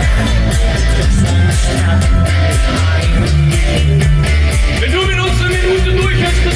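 A rock band playing, with guitar and bass over a steady beat. A voice comes in about five seconds in.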